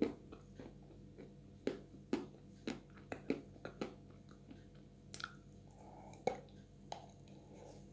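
Close-up eating sounds of sticky Chuy edible clay: wet lip smacks and short chewing clicks, about one every half second, with a stronger bite about six seconds in.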